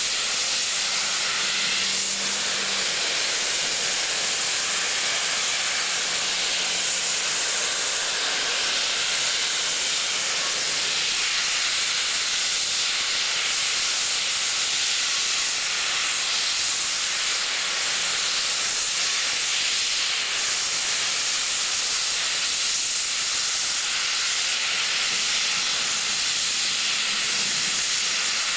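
Narrow-gauge K-36 steam locomotive No. 484 venting steam in a loud, steady hiss, the engine sitting under pressure as it is readied for a run.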